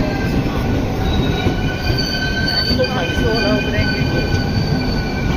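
NS VIRM double-decker train running with a steady loud rumble. About two seconds in, several high, steady squealing tones set in and hold: the wheels squealing on the rails.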